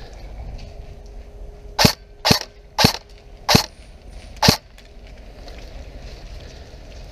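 Five sharp airsoft cracks in quick succession, about half a second to a second apart, beginning about two seconds in and ending about four and a half seconds in.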